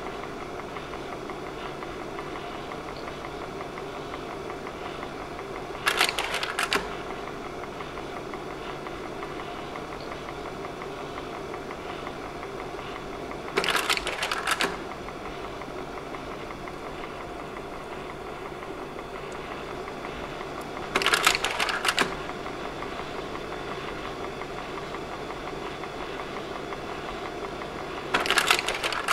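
Slide projector running with a steady fan and motor hum, its slide-change mechanism clacking four times at even spacing, about every seven and a half seconds, as each slide drops in.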